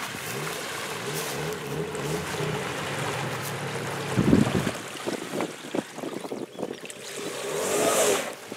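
A small boat's outboard motor running for about four seconds, then a heavy thump as it stops. Scattered knocks against the boat follow.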